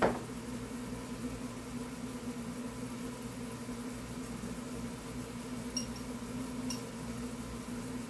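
Steady low mechanical hum of a motor running, with a sharp click at the very start and two faint ticks a little after the middle.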